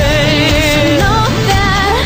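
Pop music: a singer holding sustained notes with vibrato and sliding between pitches, without clear words, over full band backing.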